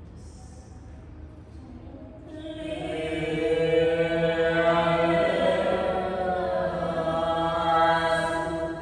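Group chanting in long held notes, several voices together, faint at first and then swelling much louder about two and a half seconds in.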